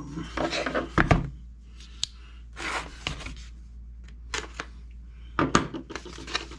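Hands handling a LiPo battery pack and its packaging: bursts of rustling with several sharp knocks, the loudest about a second in and another about five and a half seconds in.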